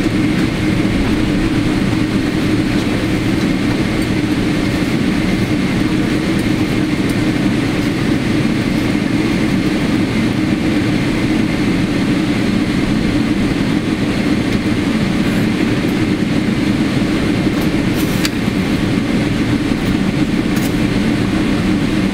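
Steady cabin noise inside a Boeing 777-300ER rolling out along the runway after landing: a deep, even rumble of the GE90 engines and the wheels on the runway, with a faint steady whine above it.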